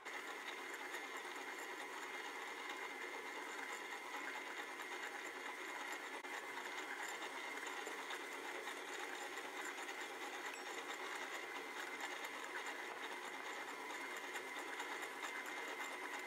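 Stand mixer running steadily on low speed with a constant high whine, its dough hook working crumbly bread dough in a stainless steel bowl.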